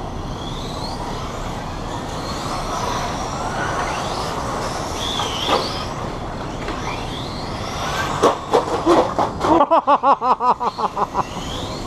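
Small electric RC cars running laps, their motors whining up and down in pitch as they speed up and slow down over a steady background rumble. Near the end comes a quick string of short, sharp pulses, several a second, for about three seconds.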